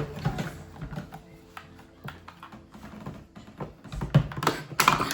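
Irregular light clicks and taps of small hard objects being handled, over soft background music, with a louder burst near the end.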